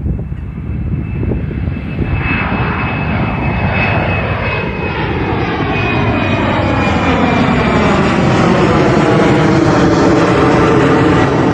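Jet airliner flying low overhead, its engine noise growing steadily louder from about two seconds in, with a steady high whine over a hiss whose tone sweeps downward as it nears. Wind buffets the microphone at the start.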